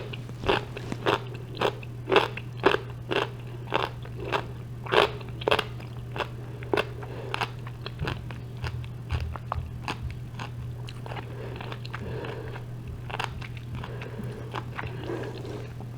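Close-up chewing of a crunchy mouthful of gyro with cucumber, with sharp crunches about twice a second that grow softer and sparser in the second half. A steady low hum runs underneath.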